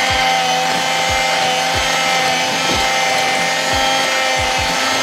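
Electric hand mixer running steadily, its twin beaters whipping eggs and sugar in a glass bowl, with a steady motor whine and a low thud every half second or so.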